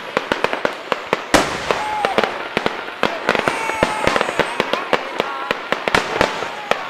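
Fireworks going off: a rapid, uneven run of sharp bangs and crackles, several a second, with one louder bang about a second and a half in.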